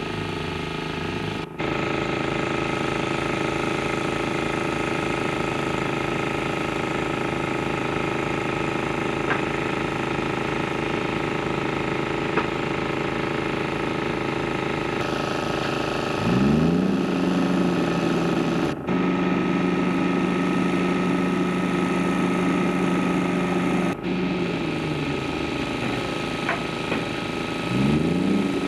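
A heavy diesel engine running steadily, revving up twice with a rising pitch, a little after halfway and near the end. The sound cuts out briefly three times.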